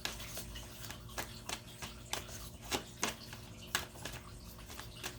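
Tarot cards being handled and laid out on a table: a string of light, irregular clicks and snaps.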